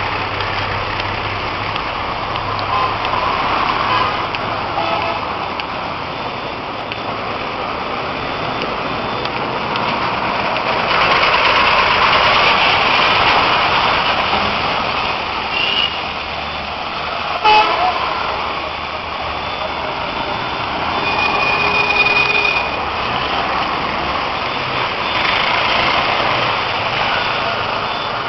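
Road traffic in heavy rain: a steady hiss of rain and tyres on wet asphalt, swelling as a bus drives close past about halfway through. A single sharp knock comes soon after, and later a short high tone.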